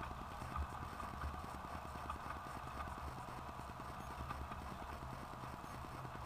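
Model Milwaukee Road Hiawatha train running on the layout's track out of view: a steady motor hum with a fast, even clicking of wheels over the rails.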